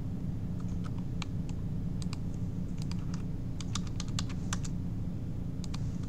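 Computer keyboard keys and mouse buttons clicking in scattered short runs, quickest about four seconds in, over a steady low hum.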